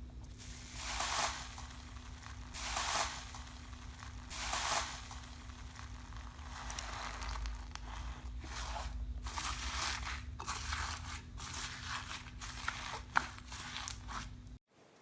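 Slime being squeezed and pressed by hand: three slow crinkly squeezes in the first five seconds, then a denser run of small crackles and pops, over a faint steady hum. It cuts off abruptly just before the end.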